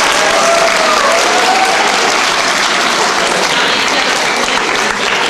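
Large audience of students applauding, a dense, steady patter of many hands clapping in a hall.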